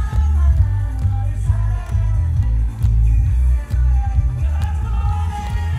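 A male singer performing live into a handheld microphone over dance-pop music with a heavy bass, heard through the stage sound system.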